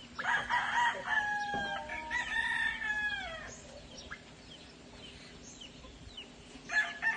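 Rooster crowing: one long call of about three seconds that falls in pitch at its end, and another crow starting near the end.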